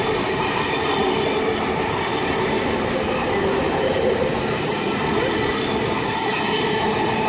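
An eight-car V set double-deck electric intercity train passes through the station: a steady, loud rumble of wheels on rail with whining tones.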